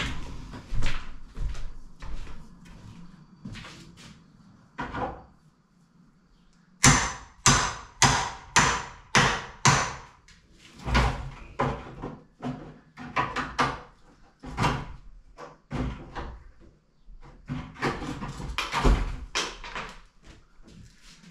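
Repeated hammer blows on a wooden door frame, coming in runs of sharp strikes, the quickest and loudest about two a second.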